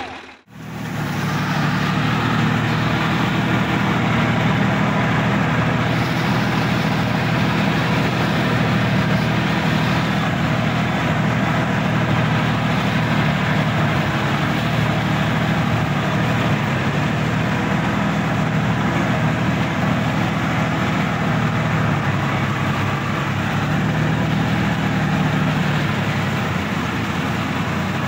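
Sonalika tractor's diesel engine running steadily under load while driving through a flooded, muddy paddy field, heard close up from the driver's seat. The sound cuts out for a moment at the very start.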